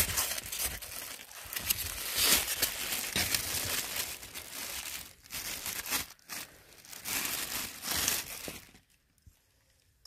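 Clear plastic bag crinkling as it is handled and pulled off a packaged item, in uneven bursts.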